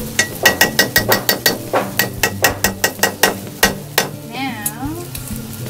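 Metal spoon stirring cooked eggplant in a metal wok, clinking and scraping against the pan in a quick run of about six clinks a second that stops about four seconds in.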